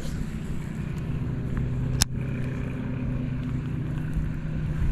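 A steady low engine-like drone over wind noise, with one sharp click about two seconds in.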